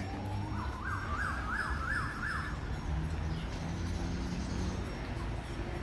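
Outdoor ambience with a steady low rumble. From about half a second in, a distant siren warbles briefly: a tone that rises and drops about three times a second for roughly two seconds, then fades out.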